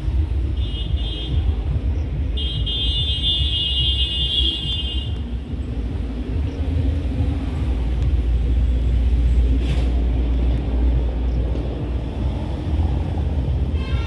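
Steady low rumble of road traffic, with a faint high tone for a few seconds near the start.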